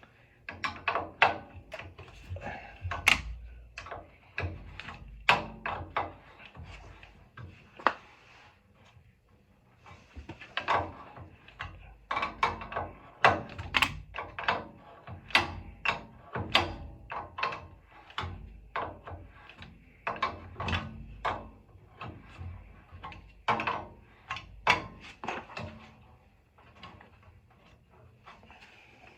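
Irregular metallic clicks, knocks and clatter of hand tools and metal parts as a gas water heater's pilot and burner assembly is being taken apart.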